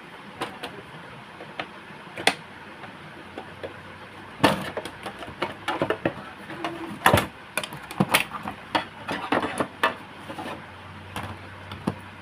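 Irregular plastic clicks and knocks as the printer's plastic side cover is pried and unclipped from the body, with the loudest clusters of snaps about halfway through.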